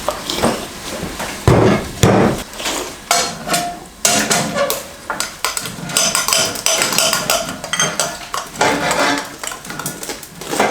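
Spoons clinking and scraping against bowls during eating, with many small clicks and two heavier knocks about one and a half and two seconds in.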